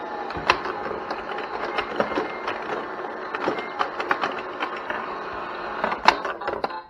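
Tabletop electronic pinball toy in play: a busy run of irregular plastic clicks and clacks from the ball hitting the bumpers and the flippers firing, over the toy's electronic game tune, with one sharper knock about six seconds in.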